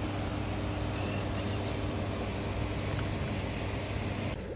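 Steady low rumble of water flowing below a hydroelectric dam, with a faint steady hum and a few faint bird chirps. The rumble drops away just before the end.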